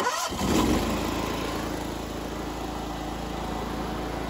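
Gas engine of a pressure washer starting up with a sudden burst, then running steadily while driving a CAT plunger pump. The pump runs evenly without pulsing, its check valves just refitted with their missing O-rings.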